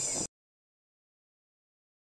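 A small electric motor's steady high whine and hum cuts off abruptly a quarter second in, leaving dead silence for the rest.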